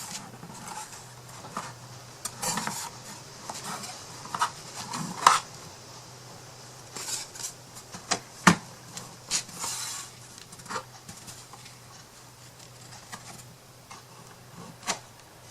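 Thin wooden craft-kit pieces being handled and slotted together: irregular light clicks and taps with short scrapes as tabs are fitted, and a sharper knock about halfway through.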